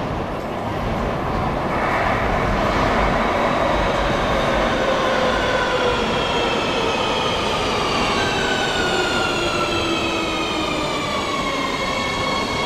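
Madrid Metro Serie 3000 train arriving at a platform and slowing: its electric traction motors whine in several tones that fall steadily in pitch, over the rumble of the wheels on the rails. It grows louder over the first couple of seconds as it comes out of the tunnel.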